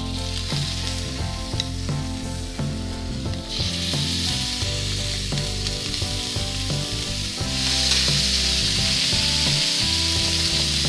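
Chicken pieces sizzling in hot oil in a frying pan over very high heat. The sizzle gets louder as more pieces are laid in, first about three and a half seconds in and again near eight seconds.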